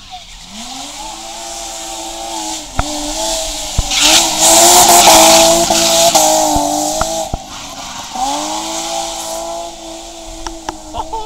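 A BMW E30 3 Series rally car at full throttle, its engine note climbing, breaking off and climbing again as it runs up to a hairpin. From about four to seven seconds in, the tyres squeal as the car slides sideways through the bend, the loudest part. It then accelerates away and fades.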